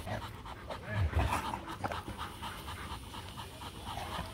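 Rottweilers panting in quick, even breaths while mating, with a few dull low thumps about a second in.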